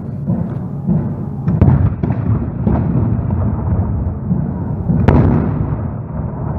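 Blank-firing reenactment cannon and musket shots on a parade ground: several sharp reports, the loudest about five seconds in, over a continuous low rumble.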